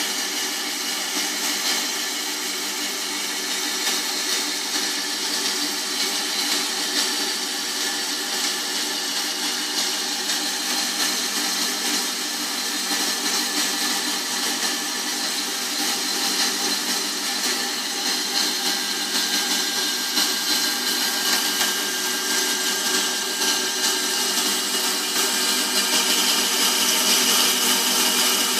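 Proxxon MBS 240/E benchtop band saw running steadily, its blade sawing through a solid copper rod kept wet by a trickle of water coolant. The sound gets a little louder near the end.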